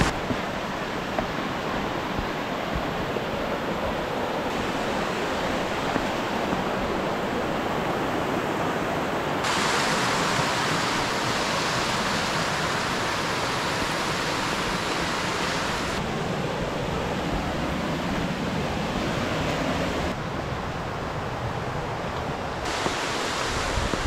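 Steady outdoor rushing noise, like running water or wind on the microphone, that changes abruptly in brightness several times as separate shots follow one another.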